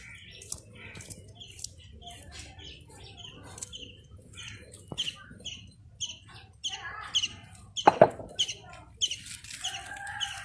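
Birds chirping in short, high notes repeated about twice a second, with a louder short call about eight seconds in.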